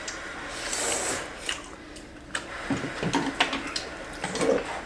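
People eating noodles with chopsticks: a slurp about a second in, with scattered clicks of chopsticks and spoons against bowls.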